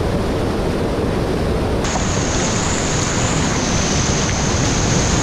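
Steady rushing roar of whitewater pouring over a waterfall, close up. About two seconds in a steady high-pitched whine joins it.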